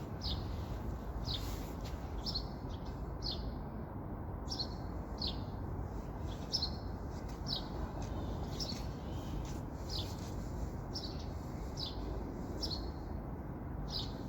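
A bird chirping over and over, short falling notes about once or twice a second, over a steady low background rumble.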